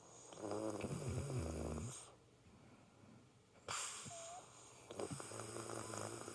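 A woman snoring in her sleep: two long snores, one ending about two seconds in and the next starting after a quiet gap of a second and a half.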